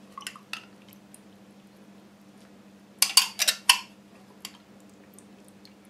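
A glass jar of sprouts is tipped and shaken over a steel pan, giving a few light clicks and then a short cluster of sharp clinks and knocks about three seconds in. A steady low hum runs underneath.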